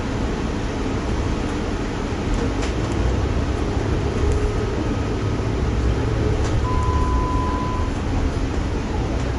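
Interior of a New York MTA city bus under way: steady engine and road rumble with a few light rattles. A short steady beep sounds for about a second, roughly seven seconds in.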